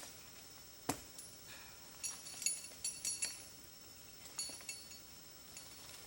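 Light metallic clinks: one sharp click about a second in, a quick cluster of clinks with a short high ring near the middle, and two more a little later, over a faint steady high tone.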